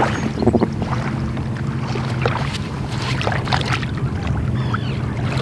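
Steady low motor drone with a constant hum, over wind on the microphone, with scattered light knocks and a few faint high chirps.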